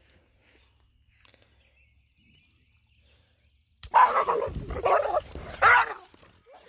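Dog yelping loudly about three times, starting suddenly about four seconds in: its cry on getting a jolt from an electric fence wire.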